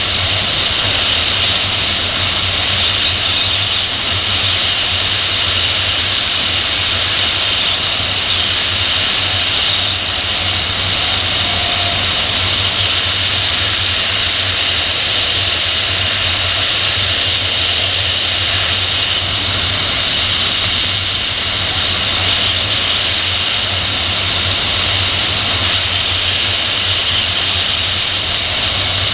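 Steady rush of airflow over a camera on the tail of a PIK-20 sailplane in gliding flight, with a low hum beneath: wind noise on the microphone, with no engine running.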